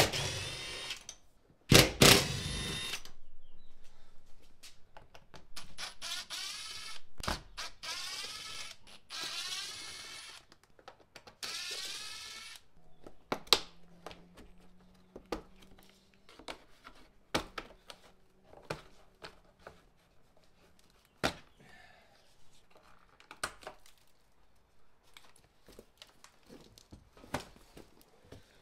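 Ridgid cordless driver with a socket extension spinning out the 14 mm seat bolts: two short loud bursts at the start and about 2 s in, then longer runs with a wavering whine from about six to twelve seconds in. After that, scattered knocks and clicks as the loosened seat and the wiring beneath it are handled.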